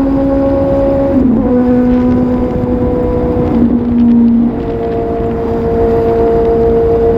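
Suzuki GSR750's inline-four engine running at steady revs on the move, over a low rush of wind noise. Its pitch steps down about a second in, and its level drops and its note changes about four and a half seconds in, as the throttle eases or the gear changes.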